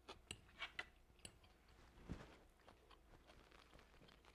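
Faint eating sounds: quiet chewing of a mouthful of chicken and pasta, with a few soft clicks in the first second and a half and a soft knock about two seconds in; otherwise near silence.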